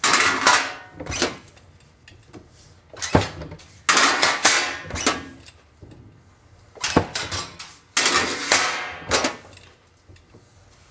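Sheet metal clanging and ringing as it is flipped, set in a cast-iron bar folder and bent up at 90 degrees. It comes in about half a dozen sharp bursts a second or two apart, with quieter gaps between.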